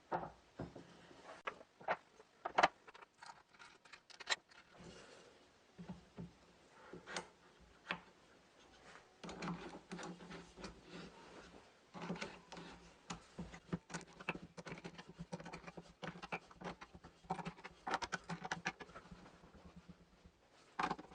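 Faint irregular clicks, knocks and scrapes of hands and metal as a wooden bowl blank is fitted into a four-jaw lathe chuck and the jaws are adjusted; the lathe is not running.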